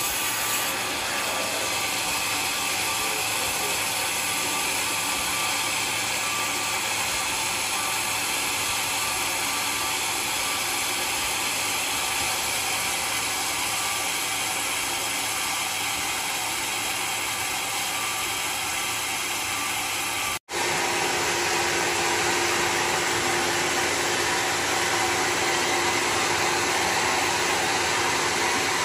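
Vertical band sawmill running, its blade cutting lengthwise through a mahogany log with a steady, even noise. It cuts out abruptly for an instant about two-thirds through, then the mill runs on with a faint steady hum.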